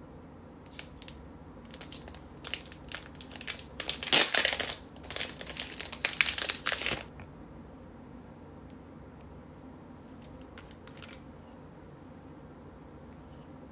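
Clear plastic packaging crinkling and crackling as a liquid glue tube is handled and pulled out of it. The crackles are loudest and densest about four to seven seconds in, followed by a few faint clicks.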